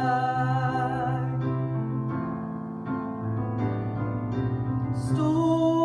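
Worship song: a singer holds the last word "sky" over piano chords, then the piano carries on alone with sustained chords and a low bass note until the next sung line begins near the end.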